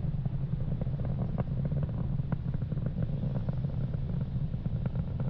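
Distant low rumble of a Falcon 9 rocket's nine Merlin engines during ascent, steady throughout, with faint irregular crackling over it.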